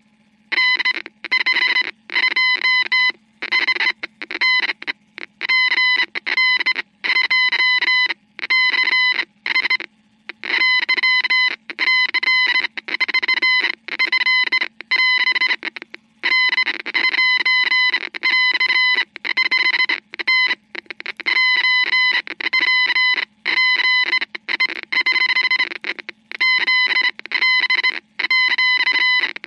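Morse code playback: a buzzy beeping tone keyed on and off in short dots and longer dashes with irregular gaps, over a steady low hum.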